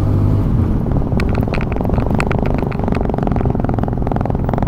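TVS Apache RTR 200 motorcycle cruising at about 60 km/h, its single-cylinder engine running steadily under wind and road noise on a handlebar-mounted phone. A scatter of short sharp ticks sounds from about a second in.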